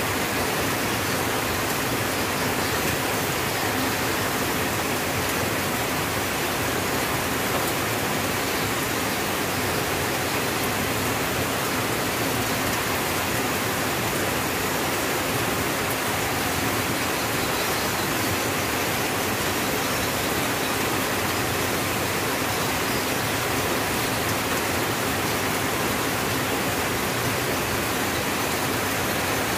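Steady rain falling on a tin roof: an even, unbroken hiss with no single drops or knocks standing out.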